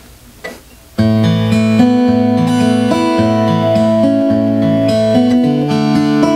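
Martin acoustic guitar being played, starting suddenly about a second in with ringing notes and chords that change every half second or so.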